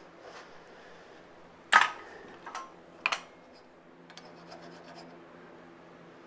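Two sharp metallic clanks with a brief ring, about two and three seconds in, then quiet rasping strokes of a hand file drawn across the steel Damascus piece clamped in a vise.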